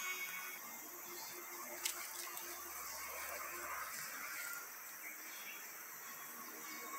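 Outdoor garden ambience: a steady hiss of insects with faint bird calls in the background, and a single sharp click about two seconds in.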